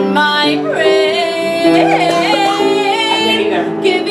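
A woman singing a musical-theatre song with wavering held notes over an instrumental accompaniment.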